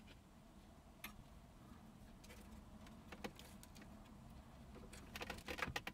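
Near silence with a few faint clicks and light rattles of wiring plugs and cables being handled behind a pulled-out car stereo head unit, a little busier near the end.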